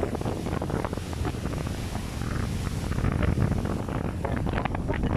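Wind buffeting the microphone aboard a motorboat under way, with a steady low rumble of the boat and water beneath and crackles of wind hitting the mic throughout.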